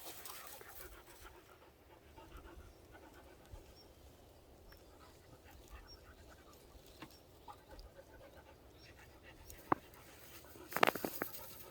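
A Pungsan dog panting faintly, with a sharp click about ten seconds in and a few more near the end.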